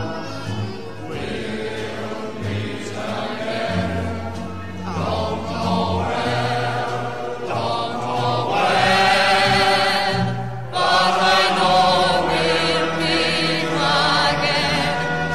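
Music with a choir singing wavering, vibrato-laden notes.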